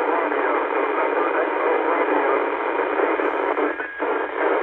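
Yaesu FTdx10 transceiver receiving on 10-metre FM, putting out steady radio hiss with no clear speech. The level dips briefly about four seconds in.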